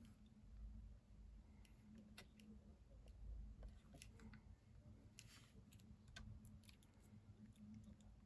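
Near silence with faint, scattered light clicks and taps of small craft tools and pieces handled on a desk, over a low steady hum.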